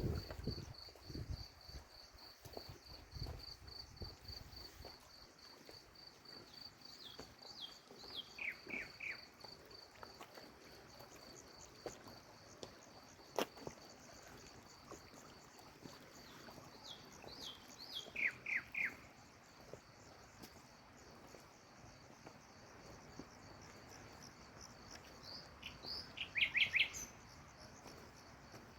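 A night insect chirps in a fast, even pulsed trill, while a bird calls three times, about ten seconds apart, each call a short run of quick falling notes. A few low thumps come in the first seconds, and one sharp click near the middle.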